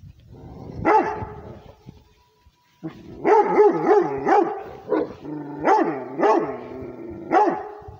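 Rhodesian ridgeback barking for its territory: one bark about a second in, then after a short pause a run of about seven loud barks.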